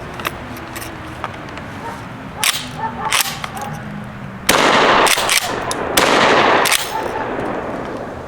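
Two shots from a 20-gauge pump-action shotgun firing old, crusty shells, about a second and a half apart, each ringing out briefly; a few light handling clicks come before them.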